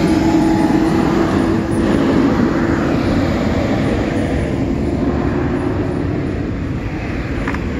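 A car engine running, a steady rumble with a hum that fades out about five seconds in.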